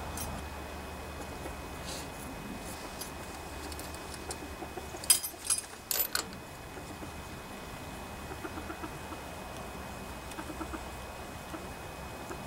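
A few sharp metal clinks from a socket wrench on the engine's valve cover bolts, loudest about five and six seconds in, with faint chicken clucking.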